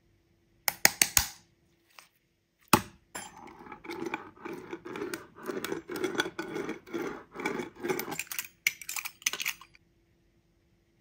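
Sticky clear glitter slime making a few sharp pops and clicks, then a metal pizza-cutter wheel rolled back and forth across the flattened slime on a wooden board, a wet, sticky crackle pulsing about twice a second for around five seconds, followed by a few more sticky pops.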